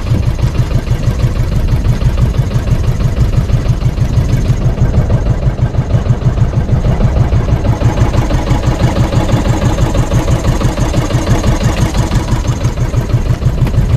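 Engine of a motorized outrigger boat (bangka) running steadily under way, with a regular low beat, and water rushing past the hull.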